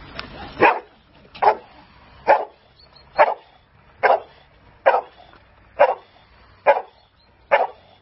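Boxer dog barking at a helper standing in a hide, the bark-and-hold guarding stage of protection training: short barks evenly spaced, a little under one a second, starting just under a second in.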